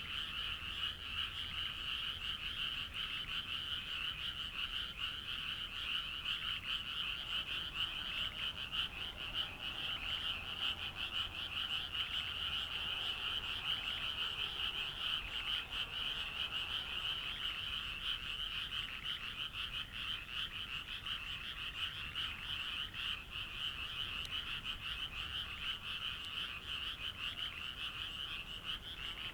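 A chorus of many frogs calling at once, their rapid pulsing calls overlapping into a dense, unbroken din.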